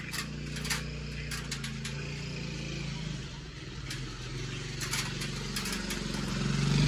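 A motor vehicle engine running steadily, growing louder near the end, with a few sharp clicks in the first couple of seconds and around the middle.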